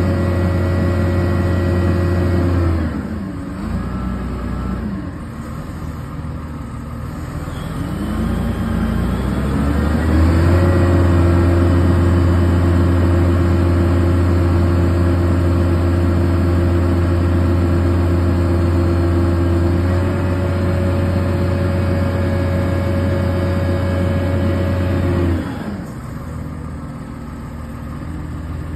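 Zoomlion truck crane's diesel engine running at raised revs while the hoist lines are worked. It drops to a lower idle about three seconds in, revs back up around ten seconds, holds steady, and falls back to idle again near the end.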